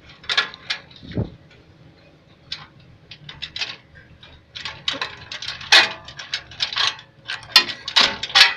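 Irregular metallic clicks and clinks from a steel roller chain and the scrap-steel tractor frame being handled, thickest and loudest in the second half, with a short falling creak about a second in.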